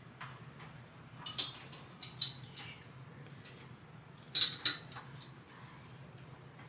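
Small metal hardware and tools clinking and scraping in a few short, sharp rattles, the loudest pair about four and a half seconds in, over a steady low hum.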